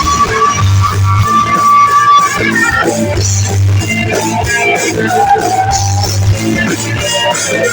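A band playing rock music live, with electric guitar and bass guitar: a held lead note for the first two seconds or so, then a moving melody over a pulsing bass line.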